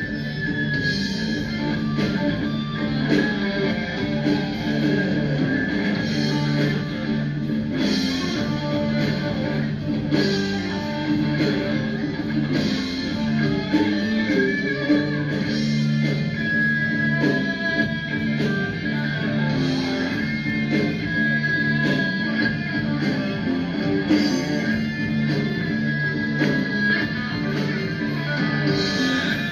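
Background music led by guitar, playing steadily throughout.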